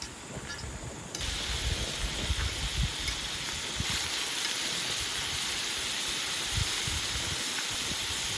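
Food sizzling in a hot pan on a camp stove: a steady hiss that starts abruptly about a second in and holds even.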